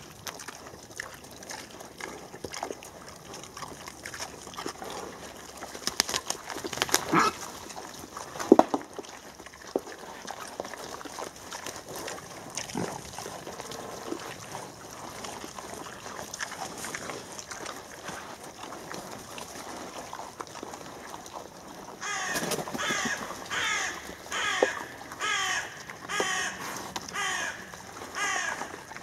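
Wild boar herd foraging: scattered rustling and cracking of leaf litter and twigs, with a few sharp knocks about six to nine seconds in. Near the end comes a quick series of harsh calls, about two a second.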